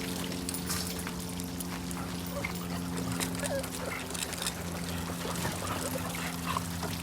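Water trickling and splashing with small scattered ticks, over a steady low hum.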